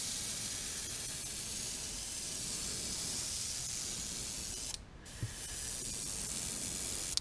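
Airbrush spraying paint: a steady hiss of air that breaks off for a moment about five seconds in, then resumes and cuts off sharply at the end.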